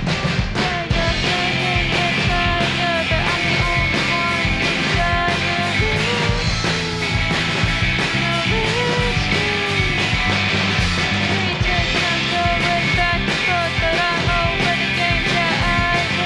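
Rock band playing an instrumental passage: electric guitars, bass guitar and a drum kit keep a steady beat, while a lead electric guitar line bends between notes.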